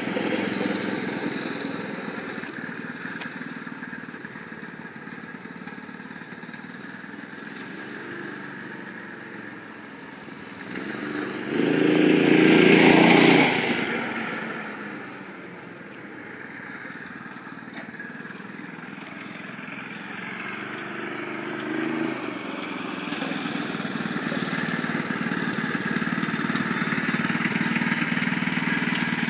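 Homemade scooter's 6.5 hp Predator single-cylinder four-stroke engine, ungoverned and driving through a torque converter, running as the scooter is ridden. It swells to its loudest a little before halfway through, drops away, then slowly builds again toward the end.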